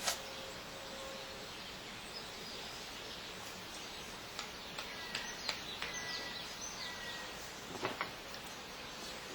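Steady outdoor background noise with a few short bird chirps in the middle and scattered light clicks.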